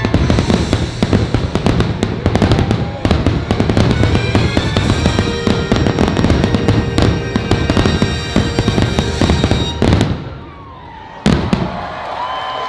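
Dense, rapid barrage of aerial firework explosions over show music, breaking off about ten seconds in. One last loud bang comes about a second later, and the crowd starts cheering near the end.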